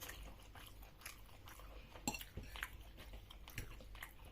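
Close-up chewing: soft wet mouth clicks and smacks, spaced irregularly.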